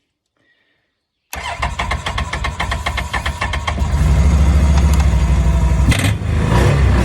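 Can-Am Outlander 650 XT's V-twin engine cranking on the electric starter in quick, even pulses, then catching about four seconds in and running. A brief sharp noise comes around six seconds in.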